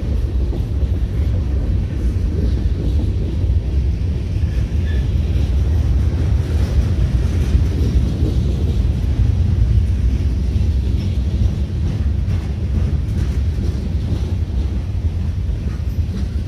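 Freight train rolling past on a track behind a standing train, a steady low rumble, with wind buffeting the microphone.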